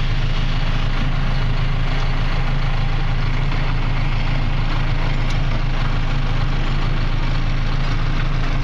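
Cat D6K2 dozer's diesel engine idling steadily.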